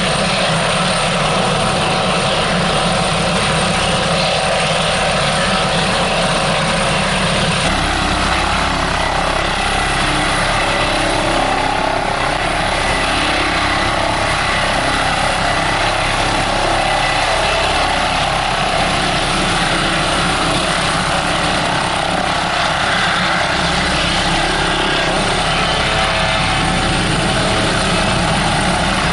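Airbus ACH145 five-bladed twin-turbine helicopter hovering low: steady turbine whine and main-rotor noise, with the Fenestron ducted tail rotor. The sound shifts abruptly about eight seconds in.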